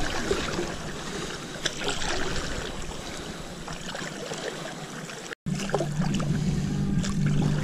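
Water splashing and trickling from paddle strokes beside a stand-up paddleboard, with wind on the microphone. The sound cuts out for an instant about five seconds in, and after that a steady low hum joins.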